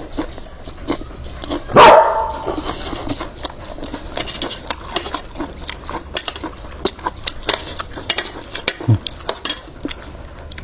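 A dog barks once, loudly, about two seconds in. Around it come frequent small clicks and clatter of dishes and utensils.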